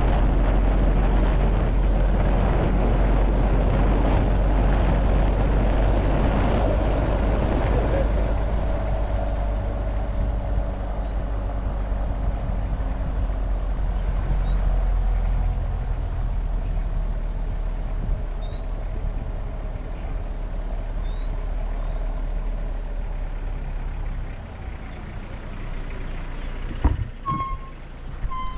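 A vehicle running along a road, with engine and road noise and heavy low wind rumble on the microphone, easing somewhat after about eight seconds. A few short, high rising chirps sound in the middle.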